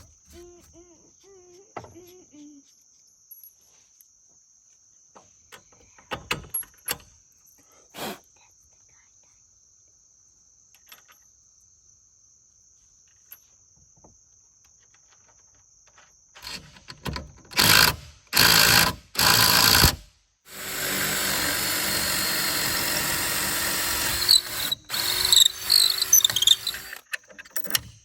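Power drill boring bolt holes. There are a few short loud bursts, then a steady run of about four seconds, then more stop-start bursts. Under it is a constant high insect trill.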